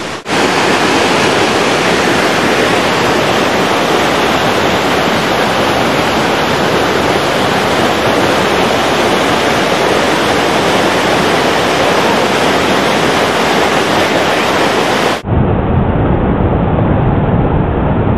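Rushing water of a rocky river cascade, a loud, steady hiss of white water. About fifteen seconds in it cuts abruptly to a duller, bassier recording of the same rushing water.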